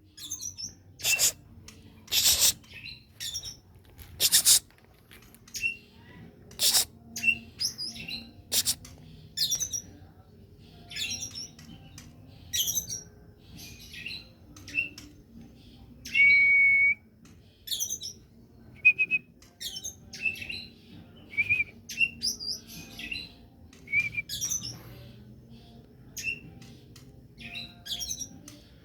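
Oriental magpie-robin (kacer) singing a varied song of quick chirps and whistles. Several harsh, rasping notes come in the first few seconds, and one longer clear whistle comes about halfway through.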